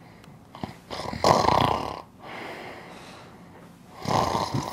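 A person snoring: two loud snores, one about a second in and another near the end.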